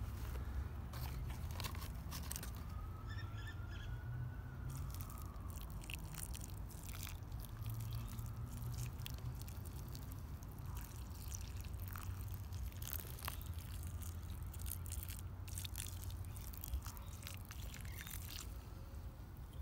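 Water poured from a plastic bottle onto loose potting soil, with scattered small splashes and crackles over a steady low rumble.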